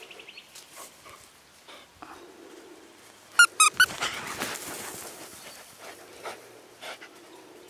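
A dog gives four quick, high-pitched yelps about three and a half seconds in, followed by a short rush of sand scattering under its running paws.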